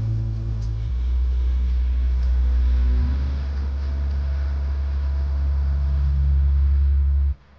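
Background music with a deep, heavy bass drone whose notes shift a couple of times, ending abruptly near the end.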